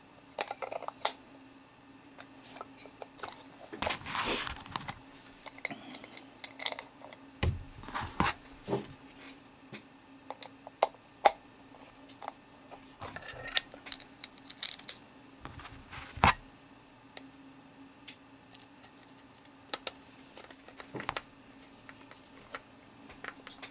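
Hand screwdriver driving small screws into a plastic chalk line box, with irregular clicks, taps and scrapes from handling the plastic case.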